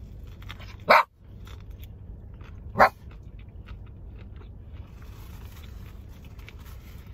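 Small Shih Tzu-cross dog barking twice, two short sharp barks about two seconds apart, over a low steady rumble.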